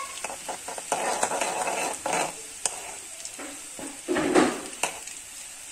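Mashed garlic sizzling as it fries in hot oil in a metal pan, stirred now and then, with a few sharp clicks against the pan.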